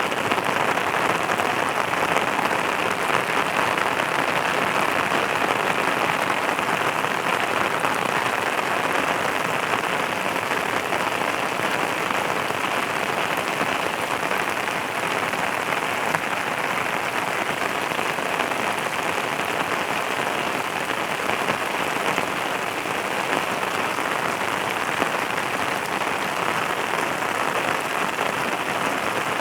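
Steady rain falling, a dense even patter and hiss of drops with no let-up.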